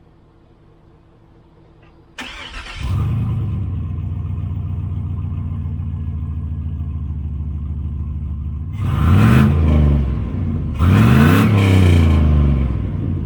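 A 6.0-litre LQ4 V8 in a turbocharged 2003 Silverado starts about two seconds in and settles into a steady idle. It is then revved twice and drops back to idle, heard through a newly fabricated turbo downpipe and exhaust with a temporary muffler.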